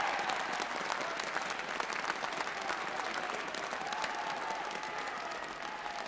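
Spectators applauding and cheering a goal, with some shouts over dense clapping; it swells suddenly just before and eases off slowly.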